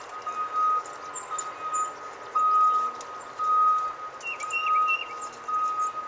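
Backup alarm of a single-drum soil compactor (vibratory roller) beeping steadily about once a second while it reverses, with a few bird chirps over it.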